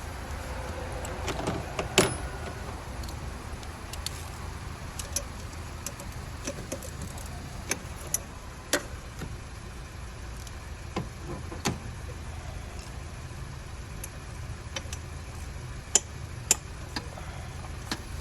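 Hand tools clicking and clinking on engine parts at irregular intervals as the engine is taken apart, over a steady low hum; the sharpest click comes about two seconds in, another near the end.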